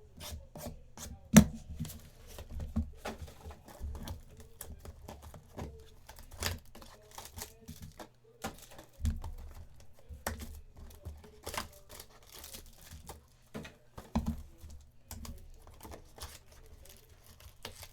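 Trading-card packs and cards being handled: plastic wrappers crinkling and tearing, with scattered taps and clicks and one sharp click about a second and a half in.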